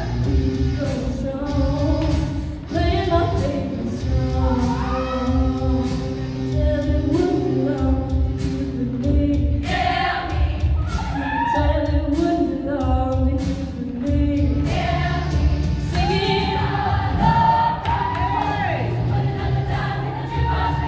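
All-female show choir singing in parts over loud pop backing music with a steady drum beat.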